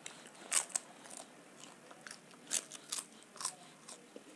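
Crisp papad being bitten and crunched: about half a dozen sharp, crackly crunches at uneven intervals, the loudest about half a second in.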